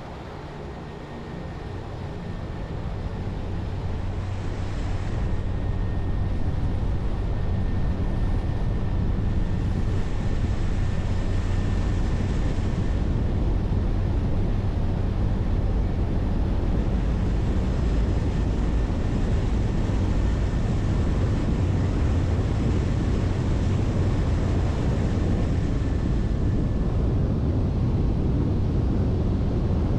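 Cessna Grand Caravan 208B's turboprop engine coming up to takeoff power, growing louder over the first few seconds, then running steadily at full power with a deep hum and a faint thin high whine.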